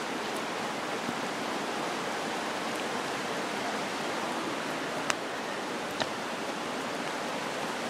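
Fast-flowing creek rushing over rocks, a steady rush of water. Two brief clicks about five and six seconds in.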